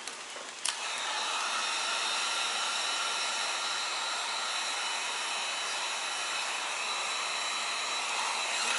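Electric heat gun switched on with a click a little under a second in, then running steadily: a rush of blown air with a thin, steady whine from its fan.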